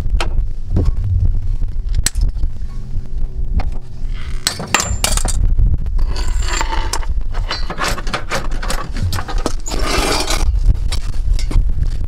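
Metal clinks and scrapes of tools and parts being handled on concrete under a car, with short bursts of scraping about midway and near the end, over a steady low rumble.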